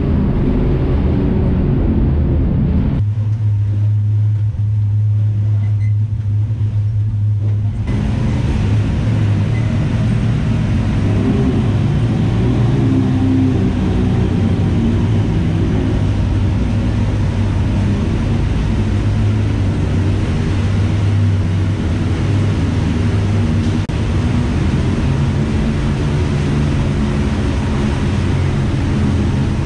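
Side-by-side UTV engine running steadily at low speed, a low drone, with tyre and gravel noise over it. About three seconds in, the higher noise drops away for about five seconds, leaving only the engine drone, then returns.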